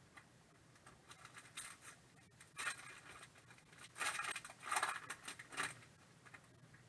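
Foil trading-card pack wrapper crinkling and tearing open in someone's hands, with the cards rustling as they are pulled out. It comes in short bursts, the longest about four to five and a half seconds in.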